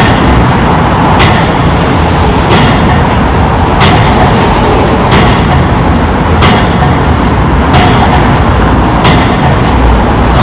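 Pile driver hammering a pile at a steady rhythm, one sharp blow about every 1.3 seconds, over the constant loud running of the piling rig's machinery.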